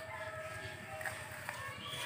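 A few faint clicks of a brinjal being sliced on a boti blade, over a steady high hum and a short bird chirp near the end.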